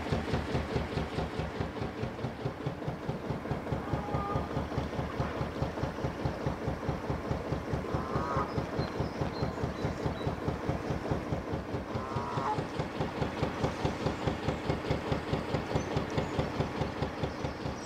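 Traditional Petter McLaren B2 narrowboat diesel engine running steadily under way, with a slow, even thumping beat.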